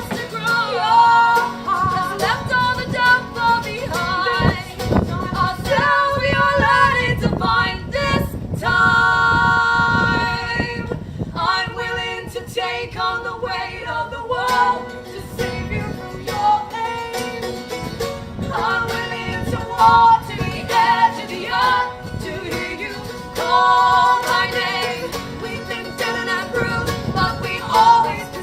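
Live pop-folk song with female vocals singing over acoustic guitar accompaniment, including a long held note partway through.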